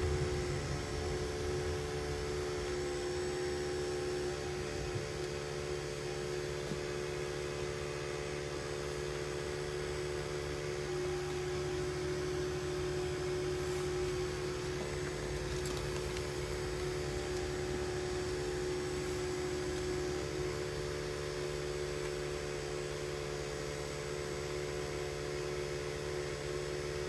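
Steady hum inside a car cabin as the car idles and creeps along in a line of traffic, holding a few constant low tones throughout.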